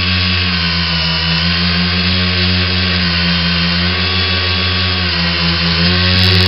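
Hobbyking X900 tricopter's three brushless motors and propellers running in flight, heard close from a camera on the frame: a loud, steady multi-tone buzz whose pitch wavers with the throttle and rises near the end.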